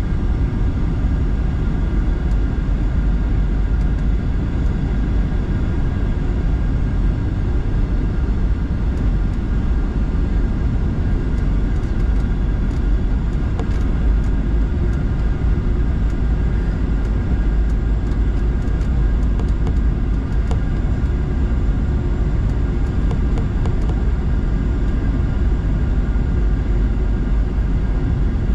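Passenger jet cabin noise on the approach: a loud, steady low rumble of engines and airflow, with faint steady whining tones above it.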